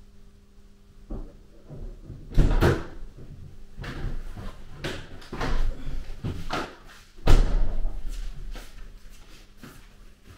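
Several bangs and knocks of someone moving about, with short echoing tails; the loudest come about two and a half and seven seconds in. Lighter steps and clicks follow near the end.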